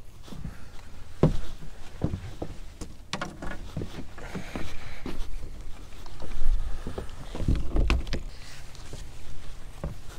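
Irregular knocks and thumps on a small fishing boat, over a steady low rumble.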